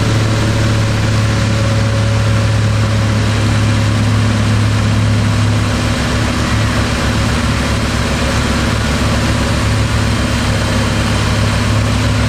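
Motorboat engine running steadily at speed, a loud low hum with a steady rush of water and air noise over it.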